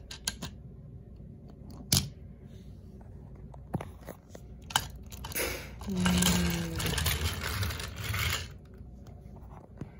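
Small plastic and die-cast toy trains being handled and moved on plastic track: a few sharp clicks, then about three seconds of scraping and rattling.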